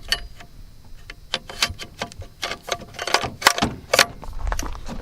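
Metal clicks and clinks of an H&R 1871 Excell 12-gauge semi-automatic shotgun being reassembled by hand, its barrel being fitted back on. The sharp clicks come quicker and louder from about halfway through.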